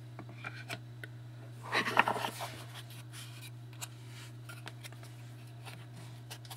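Trading cards being handled and slid against one another, with light rustling, a louder scrape about two seconds in and scattered soft clicks, over a steady low electrical hum.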